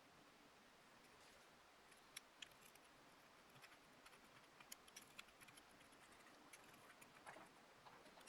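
Faint, scattered ticks and short scrapes, starting about two seconds in, of a blade shaving hardened kokuso (urushi putty) from the repaired chip of a ceramic sake cup.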